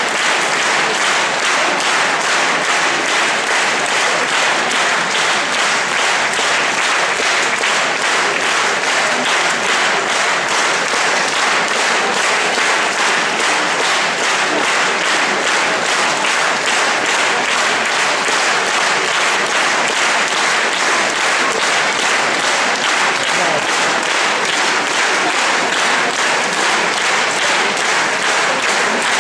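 A large concert-hall audience applauding, a dense, steady ovation of many hands clapping.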